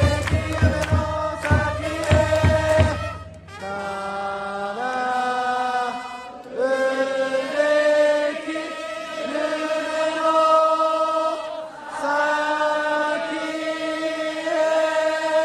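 A crowd of Orix Buffaloes fans singing a cheering song together a cappella. Sharp rhythmic hits, such as clapping, keep time for the first few seconds, then the voices sing long held notes without them.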